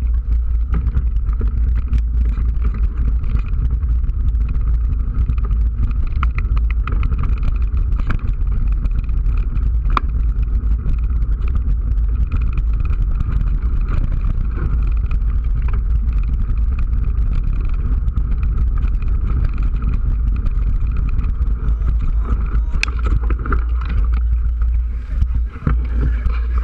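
Mountain bike ridden along a dirt forest singletrack and heard from an action camera worn by the rider: a steady heavy low rumble from wind and trail vibration, with frequent rattles and clicks from the bike over the rough ground.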